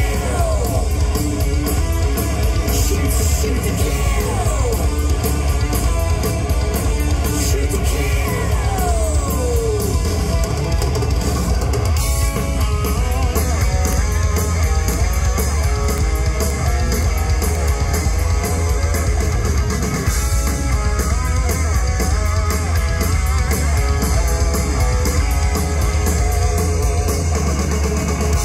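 Heavy metal band playing live, heard from the audience: distorted electric guitars, bass guitar and drum kit, loud and heavy in the low end. Falling pitch slides come about four seconds in and again around nine seconds in.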